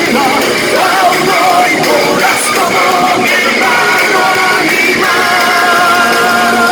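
Rock band playing live: electric guitars with bass and drums, a singing voice or lead line wavering over them and then holding long notes in the second half.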